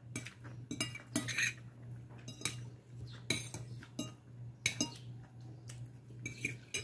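Eating by hand from a glass bowl: scattered small clicks and clinks as fingers pick at rice and fish against the glass, over a steady low hum.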